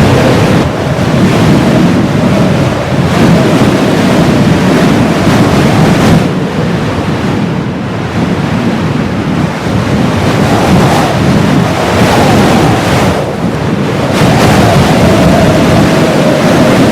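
Heavy blizzard wind blowing in gusts that swell and ease every few seconds, with a faint whistle that wavers up and down in pitch.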